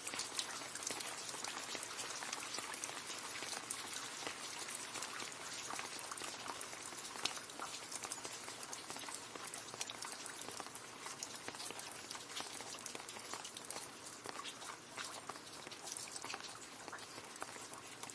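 Steady rain falling into a puddle: a dense patter of many small drop splashes over a constant hiss, with no let-up.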